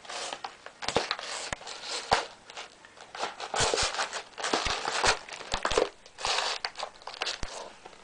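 A cat on catnip rubbing, pawing and rolling in a corrugated cardboard scratcher: irregular bursts of cardboard scraping and crackling, broken by sharp knocks.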